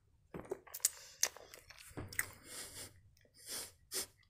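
Close-miked chewing of a soft chocolate croissant, with sharp wet mouth clicks and a couple of short puffs of breath through the nose.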